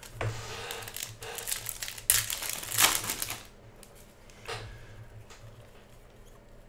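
Foil trading-card pack wrapper crinkling and tearing as a Panini Contenders basketball pack is opened and the cards are pulled out, loudest after about two seconds. It stops after about three and a half seconds, leaving faint handling of the cards and one short rustle.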